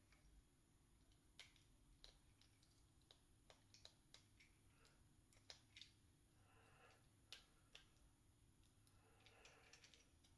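Faint, irregular clicks and taps of hard plastic action-figure parts being handled and tried for fit, with two soft rustles, one midway and one near the end.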